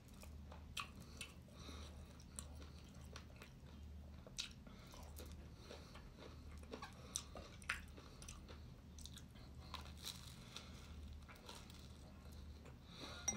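A person chewing and eating flatbread and rice close to the microphone: faint, scattered mouth clicks and smacks, over a low steady hum.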